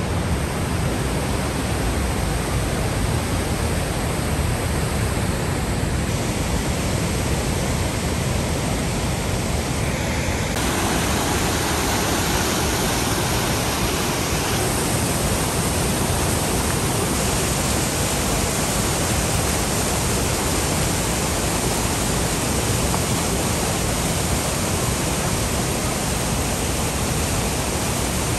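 The Rhine Falls: a wide river waterfall rushing over rocks in a steady, dense rush of water. Its tone shifts slightly a few times.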